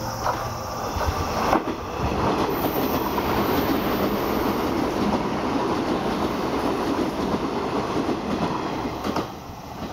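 A 381 series limited-express electric train passes at speed on the track beside the platform. Its running noise starts suddenly about a second and a half in, holds steady as the cars go by, and drops away sharply near the end as the last car clears.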